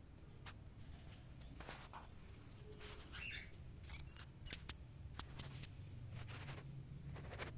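Cockatiel making faint scratchy clicks, with one brief soft chirp about three seconds in, over a steady low hum.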